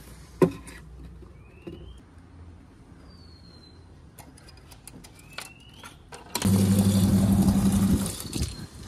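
Coin-operated drinking-water vending machine dispensing: its pump hums while water pours into a plastic bottle for about a second and a half, then cuts off. A few light clicks come before it.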